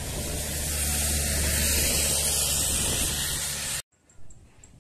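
Business jet's rear-mounted turbofan engines rushing loudly with a low steady hum as it rolls along the runway, the sound cutting off abruptly near the end.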